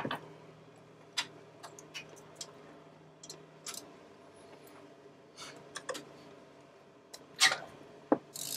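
Irregular metallic clicks and taps of hand tools, a wrench and socket, working on the turbocharger mounting bolts of a Sprinter van's engine, with a couple of louder knocks near the end.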